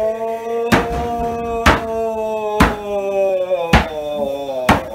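Namahage performers in straw costumes stomping heavily on the farmhouse's wooden floor, about one thump a second, the loudest sounds, under a long, low, drawn-out howl that is held for about four seconds and sinks near the end.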